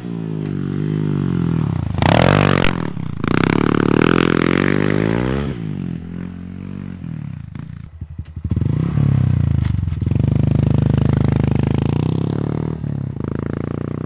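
Honda Trail 125's single-cylinder engine running through a Yoshimura Straight Cyclone straight-through full exhaust system, its revs rising and falling several times. There is a short burst of noise about two seconds in.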